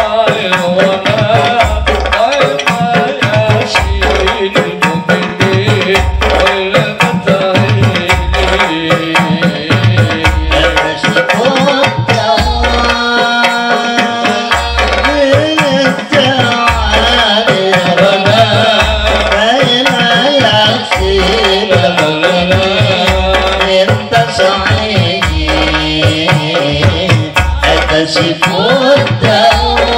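A men's group singing together into microphones over rebana frame drums and a jingle tambourine, the drums giving deep strokes about once a second under the voices.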